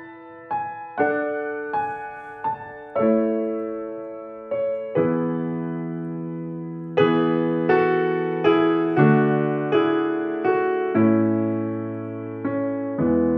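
Background music: a slow piano piece, single notes and chords struck one after another and left to fade.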